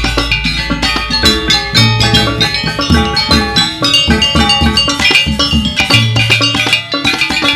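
Gamelan music: fast, dense struck metallophone notes over drum strokes, with deep gong tones sounding now and then, accompanying the Balinese bird-of-paradise dance.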